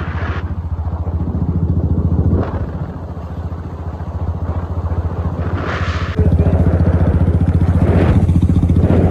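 Motorcycle engine running steadily while riding, heard from on the bike, with short gusts of wind on the microphone. It gets louder about six seconds in.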